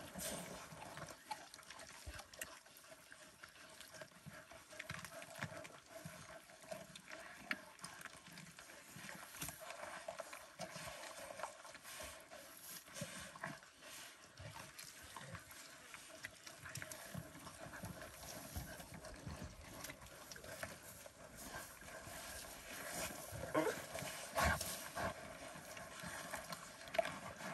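Cheetahs eating a Coke's hartebeest carcass: scattered wet clicks, crackles and tearing sounds of jaws working meat and hide, busier and louder for a couple of seconds near the end.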